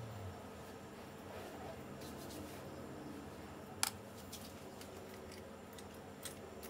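Faint scraping and light clicks of a thin carving tool working leather-hard clay, over a steady low hum, with one sharp click a little past the middle.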